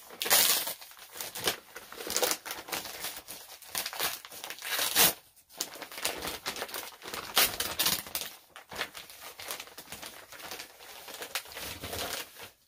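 Gift wrapping crinkling and rustling as a package is opened by hand, in irregular bursts with short pauses.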